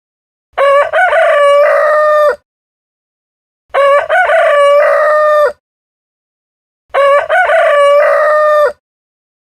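Rooster crowing cock-a-doodle-doo three times, about every three seconds. Each crow lasts just under two seconds, with dead silence between them.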